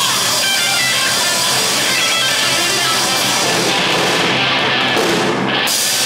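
Live instrumental rock trio playing at full volume: electric guitar over bass guitar and drum kit, with cymbals filling the high end. The cymbals drop out briefly about five and a half seconds in.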